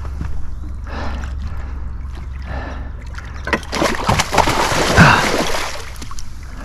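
Water splashing and sloshing beside a small boat as a hooked muskie thrashes at the surface, in irregular bursts, the biggest lasting about two seconds in the second half.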